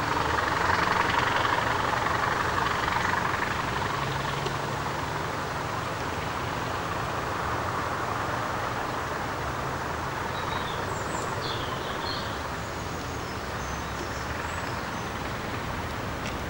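Class 20 diesel locomotive's English Electric turbocharged V8 engine running as the locomotive draws away along the line, loudest in the first few seconds and then slowly fading.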